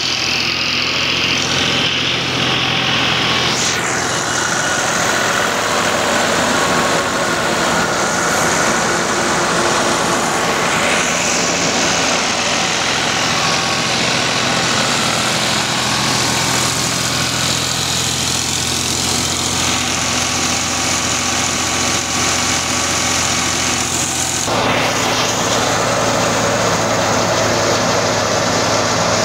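New Holland Ghazi 65 hp tractor's diesel engine running steadily under load, belt-driving a thresher that is threshing mustard, with the thresher's machine noise mixed in. The low engine tone shifts about 24 seconds in.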